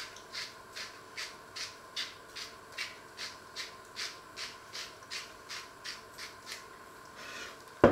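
Hand spice grinder being twisted over a frying pan, about two and a half rasping grinds a second, followed by a sharp knock near the end as the grinder is set down on the wooden worktop.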